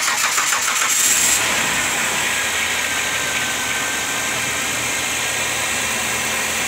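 Car engine being jump-started from a portable jump starter: the starter cranks rapidly, then the engine catches about a second and a half in and runs steadily at idle.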